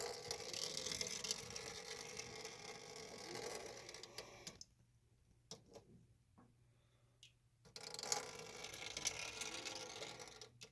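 Hands handling and working at metal pipe parts: a run of scraping and small clicks, which stops for about three seconds in the middle and then resumes.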